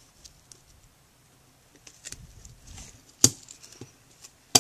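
Small clicks and handling of steel pistol parts on a Springfield Armory 1911 frame as the slide stop is worked into place with a plastic tool. One sharp click comes a little past three seconds in and another near the end.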